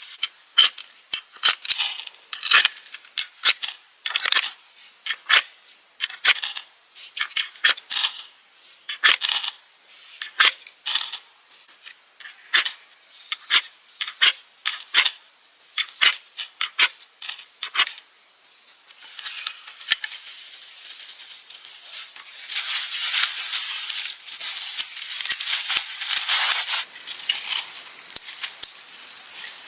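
Dry, crisp crackles, one or two a second, then a denser stretch of rustling and crackling about two-thirds through, with a faint steady high whine underneath.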